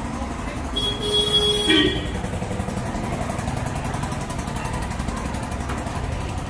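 Steady street traffic noise, with a single horn blast lasting about a second, about a second in.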